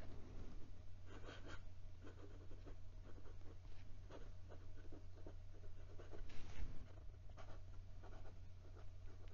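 Fountain pen nib ground to an architect italic scratching across notebook paper in short, irregular writing strokes, over a steady low hum.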